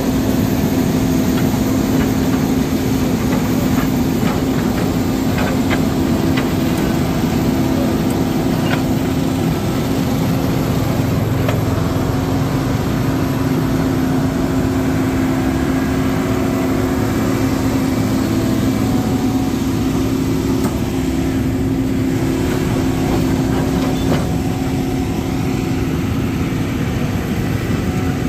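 Heavy truck engine running steadily at a constant speed, a loud, even hum that holds the same pitch throughout.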